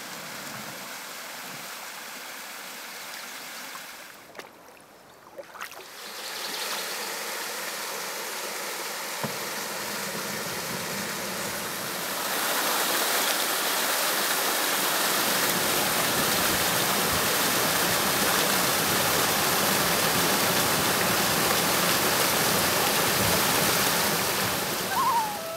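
Small waterfall cascading over rocks into a lake: a steady rush of falling water. It is softer at first, with a brief dip a few seconds in, then grows louder and fuller about halfway through.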